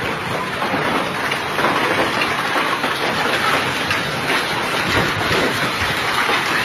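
Hailstones and heavy rain pelting down in a dense, steady clatter of many small impacts.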